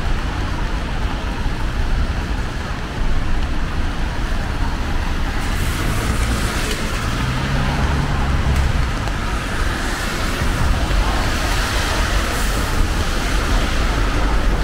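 Rainy city street: a steady wash of traffic and rain noise, with a vehicle passing about halfway through, its engine hum and its tyres hissing on the wet road.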